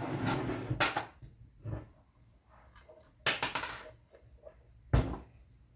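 Handling noise from the annealing machine's blue sheet-metal enclosure being lifted and turned upside down on a wooden workbench. Rubbing and a knock in the first second, a short scrape a little after three seconds, and a sharp knock about five seconds in, the loudest, as the box comes down on the bench.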